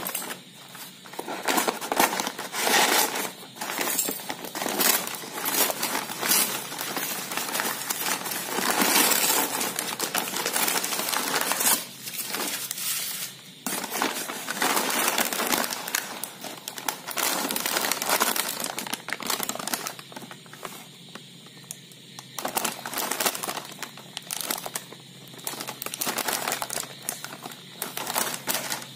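A brown kraft-paper delivery bag being handled and pulled open by hand, the paper crinkling and rustling in uneven bursts. Near the end a crinkly plastic snack packet is lifted out.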